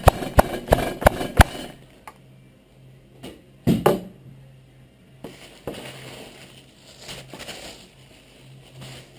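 Meat being pounded with an airsoft gun as a makeshift tenderiser: sharp blows about three a second that stop a second and a half in. One louder knock near the middle, then faint handling noises.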